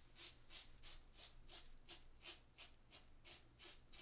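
Leaf Twig safety razor with a Feather blade scraping stubble through shaving lather on the neck: short, quick, faint strokes, about three a second.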